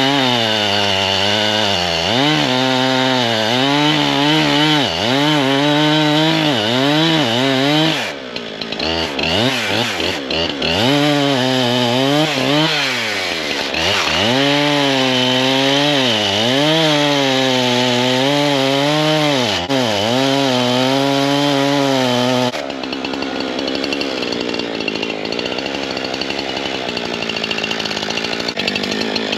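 Two-stroke chainsaw running under the throttle, its engine speed rising and falling again and again. About eight seconds in it drops off briefly before climbing again, and about three quarters of the way through the clear engine note gives way to an even rasping noise.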